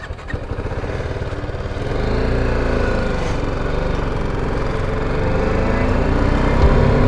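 BMW G310GS single-cylinder engine pulling away and accelerating. The engine note grows louder over the first couple of seconds, then rises and dips as the rider shifts gears.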